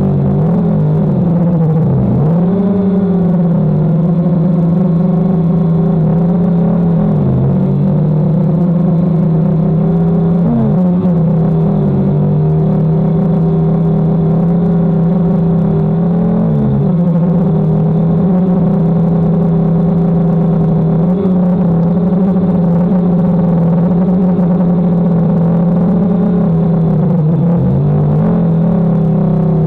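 DJI Phantom quadcopter's propellers and motors humming steadily in flight. The pitch dips briefly and recovers every few seconds as the motor speed changes.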